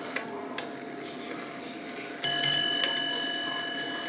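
Ship's bell clock, a converted American 8-day time-and-strike movement, striking its bell: two quick hammer blows about two seconds in, a 'ding ding' pair that rings on and slowly fades. This is the first pair of four bells. A couple of light clicks come before it.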